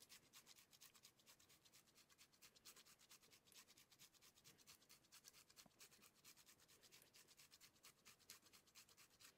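Faint, rhythmic rasping of a block of hard cheese drawn back and forth over a handheld fine rasp grater, several strokes a second.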